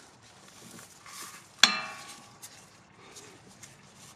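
Breaker bar and 14 mm socket on a stabilizer bushing bracket bolt: faint metal clicks and scrapes, with one sharp metallic clank about a second and a half in that rings briefly.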